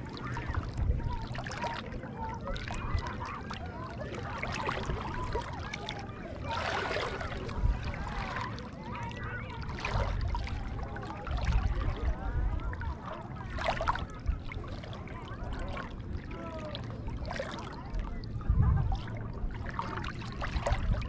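Shallow sea water sloshing and lapping close to the microphone, with low rumbling surges a few times, and faint chatter of people in the distance.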